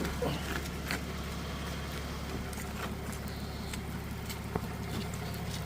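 A vehicle engine idling with a steady low hum. A few faint clicks sound over it.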